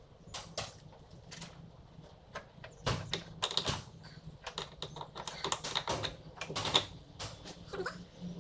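Irregular clicks, taps and light rattles from shifter cables and their fittings being handled, busiest in the middle.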